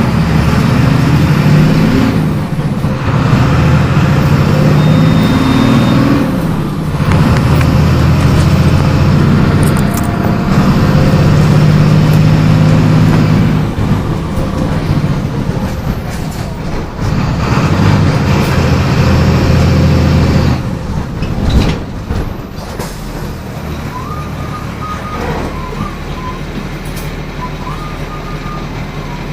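MWM 6.12 TCAE six-cylinder turbodiesel of a Volksbus 17.210 EOD bus pulling hard, its note climbing in several surges, each broken by a brief dip as the five-speed manual gearbox is shifted. For the last third the engine runs quieter and steadier, with short high electronic beeps a few times.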